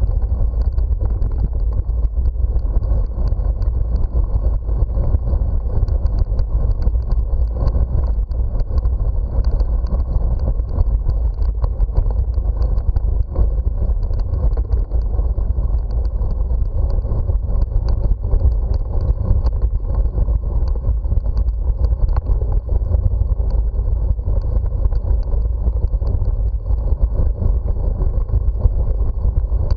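Steady low rumble of wind buffeting the microphone and bicycle tyres rolling over brick paving, heard from a camera riding on the bike.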